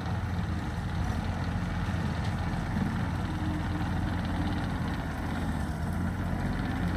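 Diesel engine of a rented excavator running steadily with a low, even drone.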